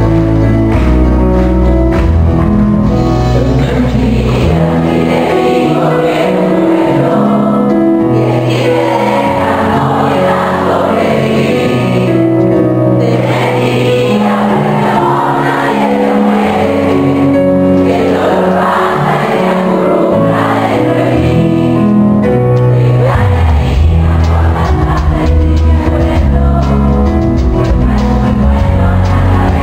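Live band music recorded from the audience, with singing over sustained keyboard chords. The deep bass drops out about four seconds in and comes back strongly in the last third.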